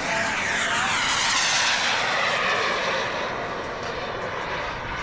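Radio-controlled turbine-powered model jet making a fast low pass: a jet whine and rush that slides down in pitch as it goes by, loudest about a second or two in, then easing off.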